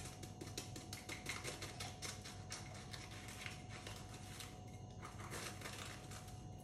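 Kitchen knife scraping the crisp, flaky top crust off a baked puff-pastry square: a quick run of dry crackling scrapes as the layers break into crumbs, with a short lull about four and a half seconds in.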